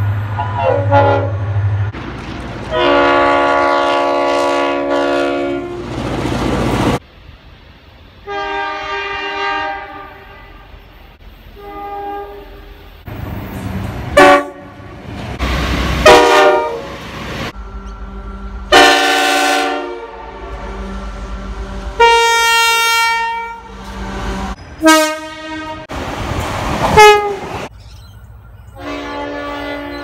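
A string of train horn blasts from several different trains, one after another: multi-note chord horns sounded in long and short blasts, one falling in pitch as the train passes, with a diesel locomotive engine running low underneath at the start.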